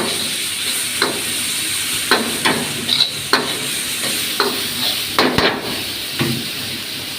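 Vegetables stir-frying in a pan, a steady sizzle with a spatula knocking and scraping against the pan about nine times at irregular intervals.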